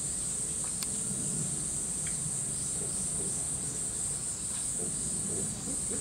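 Cicadas in a steady, high-pitched summer drone that never lets up.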